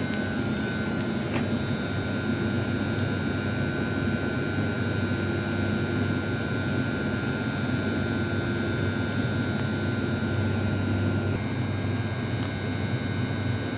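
Electric commuter train standing at the platform, its onboard electrical and ventilation equipment humming steadily with a low drone and a high whine; the whine shifts slightly in pitch about eleven seconds in.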